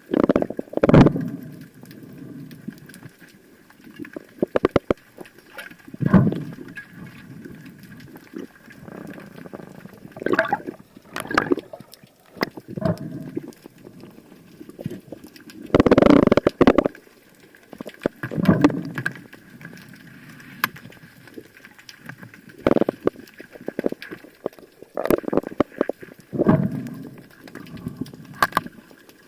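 Water gurgling and sloshing as heard by an underwater camera, in irregular swells every few seconds with scattered clicks, over a faint steady high hum.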